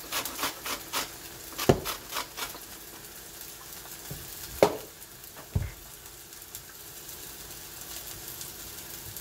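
Lemon rubbed against a handheld zester-grater in quick rasping strokes for the first couple of seconds, then a few sharp knocks as the grater and lemon are set down on the counter. Chicken breasts sizzle steadily in a frying pan underneath.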